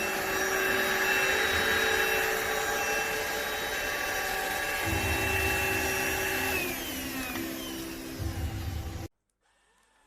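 Dibea H008 cordless stick vacuum running, a steady whirring motor with a high whine; about two-thirds of the way through its pitch drops, and the sound cuts off abruptly about a second before the end.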